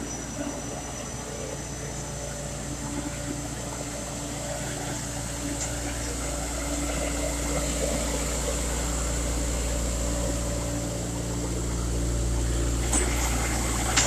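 Engines of a concrete mixer truck and a shotcrete pump running steadily, a low drone that grows louder about halfway through, as wet concrete slides down the truck's chute into the pump hopper.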